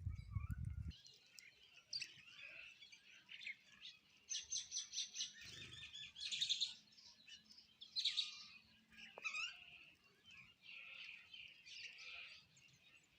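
A flock of sparrows chirping continuously, with many short overlapping chirps and a quick run of rapid repeated chirps partway through. A low rumble is heard in the first second.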